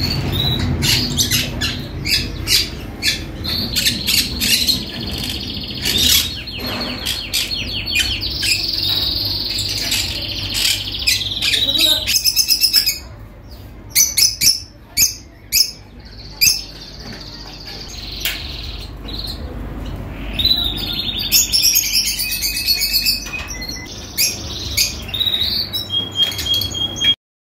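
Many small caged birds chirping and calling together in quick, overlapping bursts. The chirping thins to a few separate loud calls about halfway through, then builds up again, and everything cuts off suddenly near the end.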